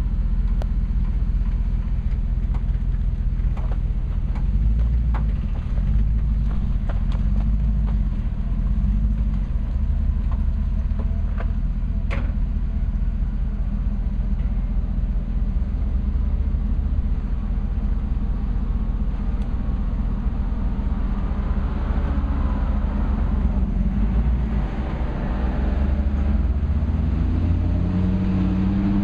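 Early Ford Bronco's engine running at low revs, with a steady rumble, as the truck crawls up a rocky, rutted dirt trail. There are scattered short clicks and knocks in the first half. The engine picks up somewhat in the last several seconds.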